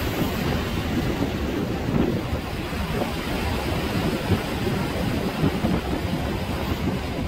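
Steady wind rumbling on the microphone over the wash of sea waves.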